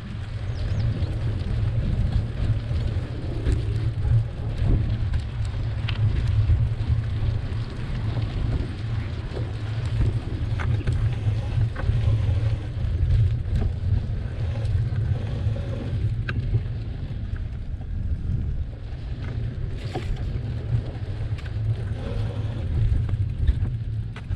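Wind buffeting and riding noise on a bike-mounted camera's microphone while cycling along a paved path: a steady, uneven low rumble with scattered light clicks and rattles.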